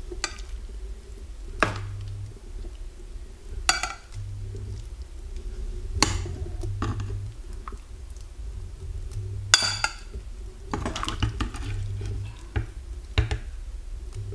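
Metal spoon clinking against a saucepan and a ceramic bowl while ladling meatballs and broth, with sharp clinks every couple of seconds and softer scraping and stirring between.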